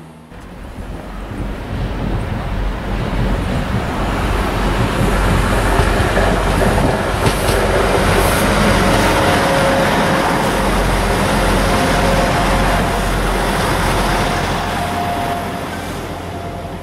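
Arriva Trains Wales Class 175 diesel multiple unit running past: engine and wheel rumble that builds over the first few seconds, holds, then eases as it goes by, with a faint steady whine in the second half.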